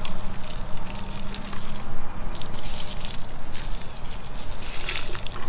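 Diluted liquid rose treatment poured from a plastic garden pitcher onto mulch at the base of a rose bush, trickling and splashing, louder in two spells about halfway through and near the end.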